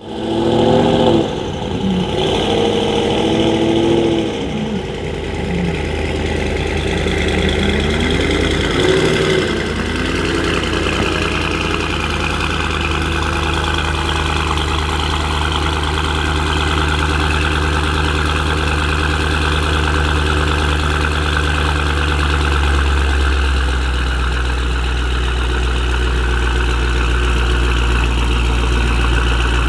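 Tuned Mercedes-AMG GT63 S twin-turbo V8 with aftermarket downpipes, revved several times in the first few seconds and then settling into a steady idle. About three-quarters through, the idle drops a step lower.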